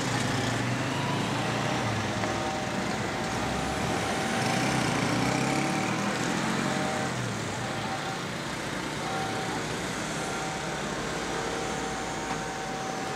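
Road traffic noise: a steady wash of passing vehicles, with a heavier engine rumble that eases off about seven seconds in.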